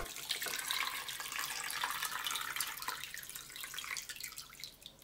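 Water pouring from a glass jug into a stainless steel pot of chicken pieces, splashing steadily as the pot is filled, then thinning out toward the end.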